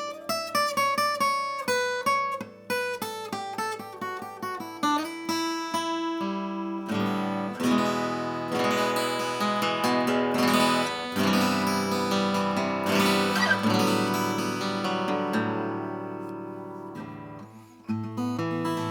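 Vintage Japanese acoustic guitar played: a picked single-note line stepping downward for about the first six seconds, then strummed chords that ring out and slowly fade, with a fresh strum near the end.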